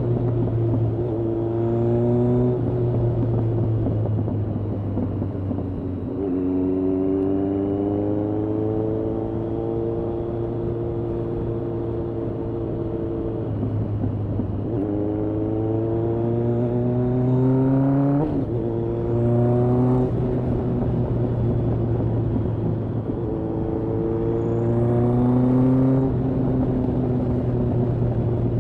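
Kawasaki ZRX1200R's inline-four engine, fed by Yoshimura TMR-MJN carburettors, on the move: the engine note climbs as the bike accelerates and drops back sharply about five times, as at gear changes or roll-offs, with a long, slowly rising stretch in the middle.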